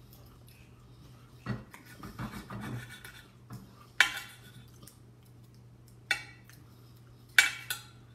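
Cutlery clinking and scraping on a dish during a meal: several sharp clinks spread through, with softer scraping between them, over a low steady hum.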